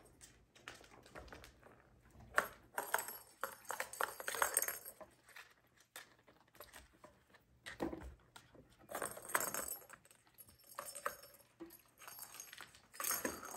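Plastic ball-track cat toys clattering and rattling as kittens bat the balls around the tracks, in irregular bursts: the busiest from about two and a half seconds in, again past the middle, and near the end.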